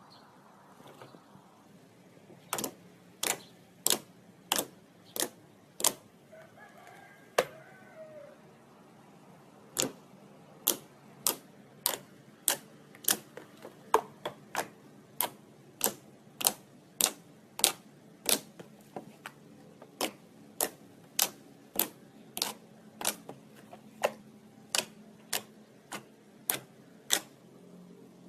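Slime being pressed and squeezed by hand, popping with sharp clicks at a steady pace of about three every two seconds, starting a couple of seconds in.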